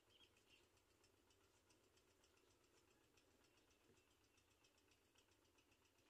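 Near silence: faint background hiss with faint, rapid high ticking.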